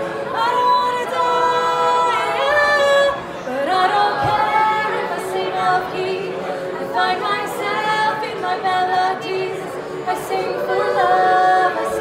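Female a cappella choir singing in harmony, several voices holding chords, with a lead voice on microphone singing over them.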